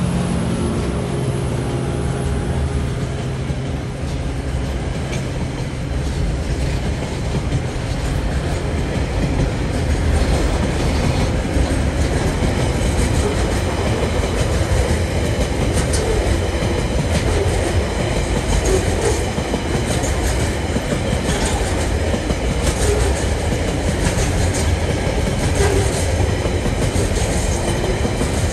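Container freight train passing at a level crossing. The engine of the last diesel locomotive fades over the first few seconds, then the wagons roll by with a steady rumble and the clickety-clack of wheels over the rail joints.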